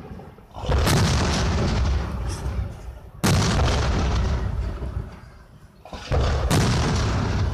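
Aerial firework shells bursting with booms, three in all about three seconds apart, each dying away over about two seconds.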